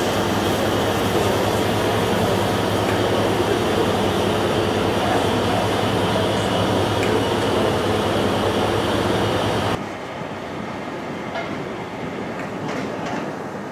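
Standing King class steam locomotive simmering: a steady hiss over a low drone. About ten seconds in the level drops abruptly to a quieter background with a few light clicks.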